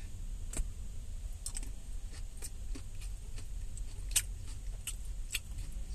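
A person chewing a mouthful of lettuce salad, with scattered crisp clicks and crunches, over a low steady hum.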